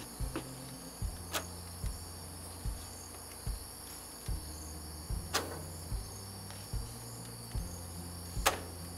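Crickets chirring steadily, over a faint music track with a low bass line and a thump roughly every 0.8 seconds. A few brief clicks stand out, about a second in, near the middle and near the end.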